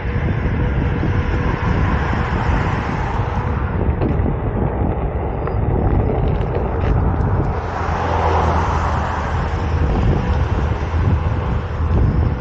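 Wind buffeting a helmet-mounted microphone during a ride on a Onewheel GT electric board, with a faint steady hum underneath and a swell of rushing noise about eight seconds in.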